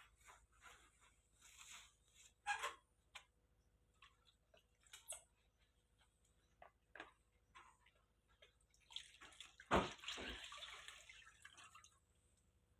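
Water dripping and splashing in small, scattered sounds, with a louder thump and splash about ten seconds in, followed by a couple of seconds of sloshing.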